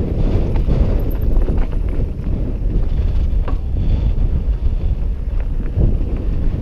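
Wind buffeting the camera microphone over the rumble and rattle of a mountain bike rolling fast down rocky dirt singletrack, with scattered knocks as the tyres hit stones.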